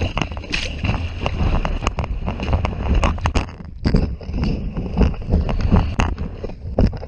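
Wind buffeting the microphone, a heavy rumble broken by irregular crackles, with a faint steady high whine above it.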